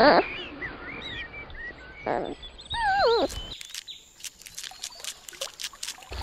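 High chirping animal calls that slide up and down in pitch, several over the first three seconds or so. Then, after a cut, a nutria (coypu) gnawing on a piece of food: a run of crisp crunching clicks, quieter than the calls.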